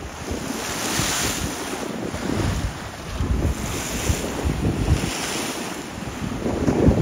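Choppy lake waves sloshing and breaking, a hiss that swells and fades every second or two, with wind buffeting the microphone in uneven low rumbles.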